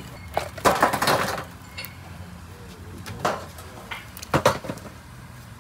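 Metal clattering and knocking: a scraper and a long-handled wire basket striking the tandoor mouth and a steel tray as baked samosas are unloaded. A dense run of clatter comes about half a second in, then two shorter knocks around three and four and a half seconds in.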